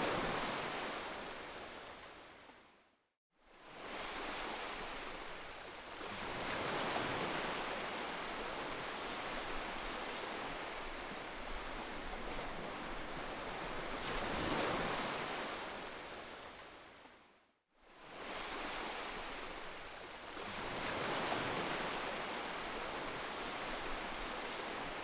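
Heavy rain as a steady hiss that swells and ebbs. It twice fades out to silence and comes straight back in, a little after three seconds and again about two-thirds of the way through.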